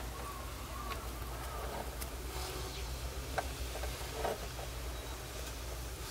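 A steady low hum with faint rustling and a few soft clicks, as of hay and fur bedding being disturbed.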